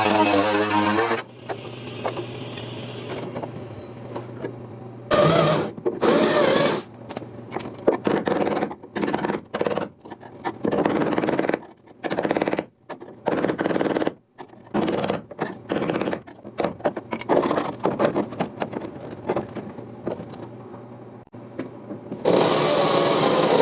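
Power tool cutting into rusted sheet-metal car body panels in short, irregular bursts that start and stop repeatedly, with brief pauses between them.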